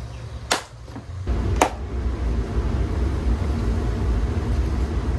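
Wind buffeting the microphone: a loud, unsteady low rumble that sets in about a second in. Two sharp clicks, about a second apart, come near the start.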